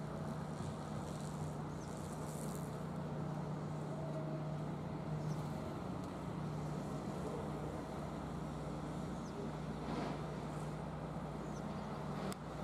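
Hitachi ZX200 hydraulic excavator's diesel engine running with a steady low hum as the machine swings and lifts its boom while digging riverbed sediment.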